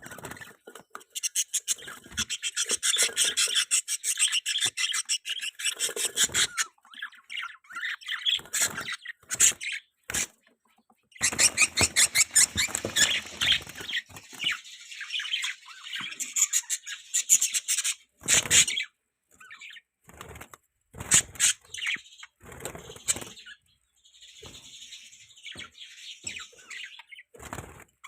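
Budgerigars chattering and warbling in fast, high-pitched runs, broken by brief pauses, then trailing off into shorter scattered chirps.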